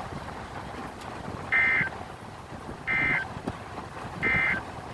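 Emergency Alert System end-of-message data bursts on NOAA Weather Radio: three short, identical buzzy digital tone bursts about 1.4 seconds apart, signalling the end of the warning broadcast, over a steady background hiss.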